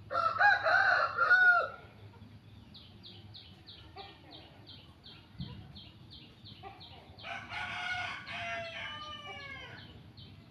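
A rooster crowing loudly, followed by a steady run of short high chirps about three a second. About seven seconds in, a second, quieter crow ends in falling notes.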